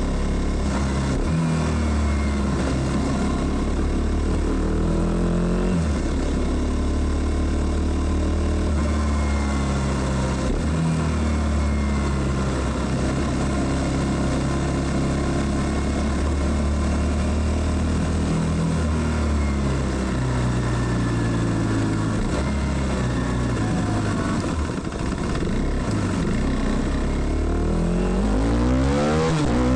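2016 KTM Duke 390 (BS3) single-cylinder engine with a flashed ECU, under way on the road: the engine note climbs and drops again and again as it accelerates and shifts gears, with a quick rev up near the end.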